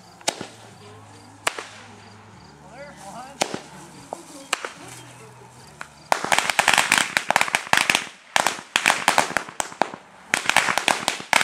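A few single firecracker bangs, then about six seconds in a string of firecrackers starts going off in fast crackling pops, swung overhead on its cord. The popping breaks off briefly twice and starts again.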